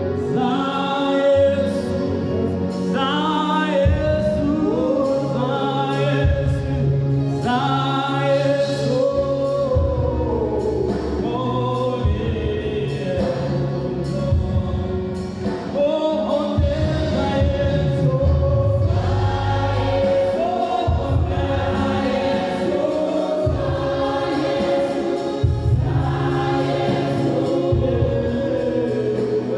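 Live gospel praise and worship singing: a group of voices led by microphone singers over a stepping bass line and a steady beat, played through PA loudspeakers.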